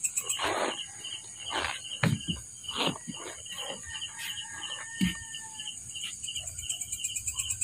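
Night chorus of insects: a steady high-pitched trill with a faster pulsing chirp beneath it. Several short rustling noises stand out over the chorus in the first three seconds.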